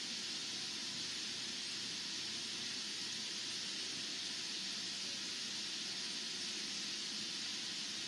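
Steady, even hiss with no bird calls or other distinct sounds.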